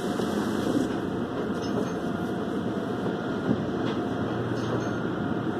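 Automatic tunnel car wash at work, heard from inside the car's cabin: a steady rumbling wash of water spray and washing equipment against the car. A short knock near the end.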